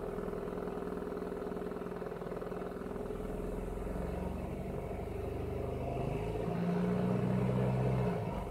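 Nissan SR20VE 2.0-litre four-cylinder engine running while cold, with the abnormal noise the owner is documenting, a steady running sound with a dense fast pulsing. About six seconds in a deeper, louder hum joins it and stops just before the end.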